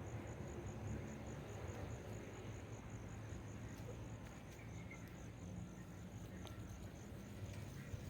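A cricket chirping steadily, a high, evenly spaced pulse of about four chirps a second, over a faint low rumble.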